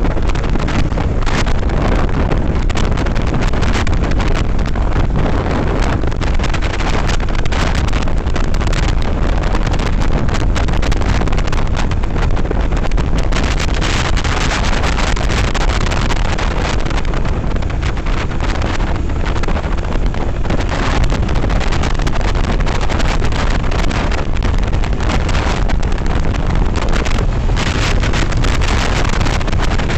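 Steady wind rushing over the microphone of a moving motorcycle, loud and unbroken.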